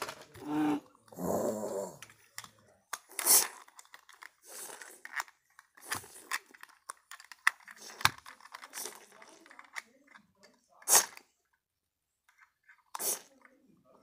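A child making vocal sound effects for toy animals fighting: a short voiced sound in the first two seconds, then a string of breathy, noisy bursts, with occasional taps of plastic figures.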